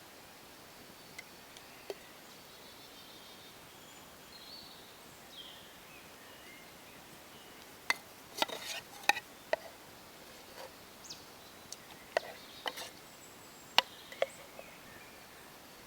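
Outdoor ambience with faint short bird chirps, then a scatter of sharp clicks and taps from about halfway on.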